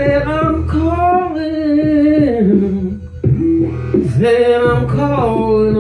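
A man singing into a microphone with electric guitar accompaniment: two phrases of long held notes that bend and slide, with a short break in the middle.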